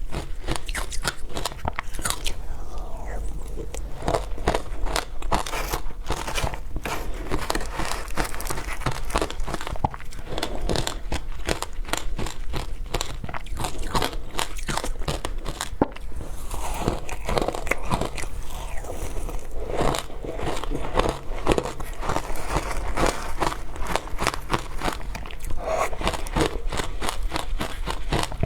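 Close-miked crunching and chewing of frozen matcha ice: a dense, continuous run of sharp cracks and crunches as the ice is bitten and ground between the teeth.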